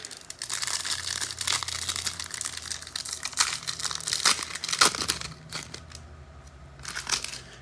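Foil trading-card pack wrappers crinkling and tearing open, with sharp crackles that die down after about five seconds.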